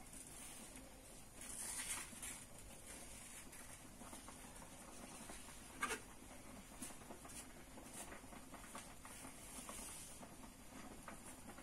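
Faint kitchen handling noise: light rustling, scratching and small clicks as cooked fufu is handled, with one sharper knock about six seconds in.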